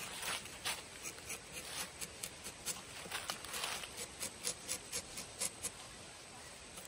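Rubber-tapping knife shaving a thin strip of bark along the tapping cut of a rubber tree: a run of short, crisp scraping strokes, about two or three a second, that stops about six seconds in.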